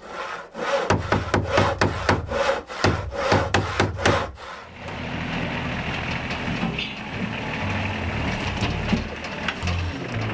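Wood being sawn: a quick run of even rasping strokes, about three a second, then from about five seconds in a steady, continuous sawing noise.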